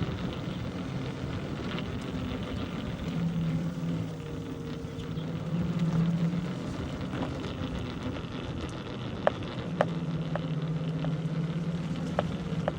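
Steady road and wind noise from a bicycle ride on a village road, with a low hum that swells and fades twice. A few sharp clicks come in the last few seconds.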